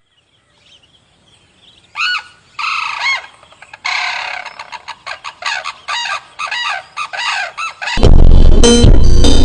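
A bird calling: a few single arching cries, a longer rough one, then a quick run of repeated rising-and-falling calls. Loud electronic music cuts in near the end.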